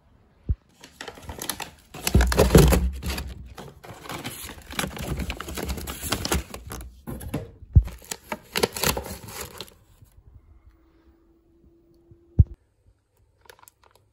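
Plastic air-cushion packing being handled and crumpled: a dense, irregular crackling that is loudest about two seconds in and stops at about ten seconds. Then a short steady hum ends in a sharp click.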